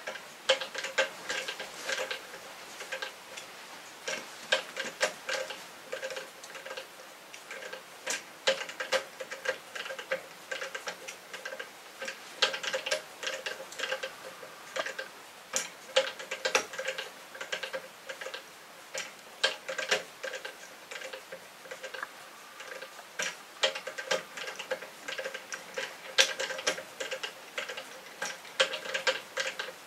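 Handmade wooden kinetic sculpture spinning and swinging on its pivots, its arms and rotors giving off an uneven run of light clicks and knocks with a faint ringing under them. It starts abruptly as the sculpture is set going.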